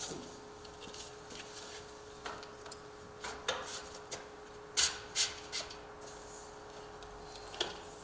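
Aluminum door-bottom expander with its sweep being slid onto the bottom of a security door: light rubbing and scraping of metal, with a few small clicks and knocks, the sharpest about five seconds in.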